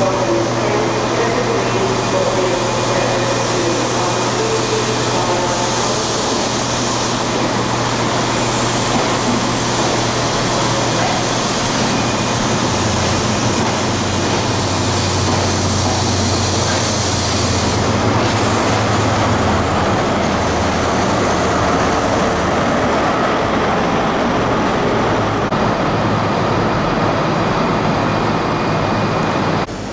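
High Speed Train (InterCity 125) rolling past along the platform: a continuous heavy rumble of coach wheels and running gear, with the steady drone of a Class 43 power car's diesel engine that drops in pitch about halfway through.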